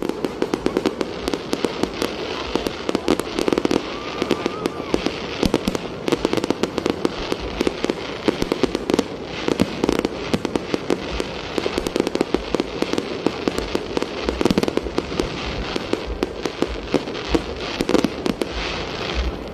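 Aerial fireworks display: a steady, dense run of sharp pops and crackles from shells bursting overhead, many in quick succession.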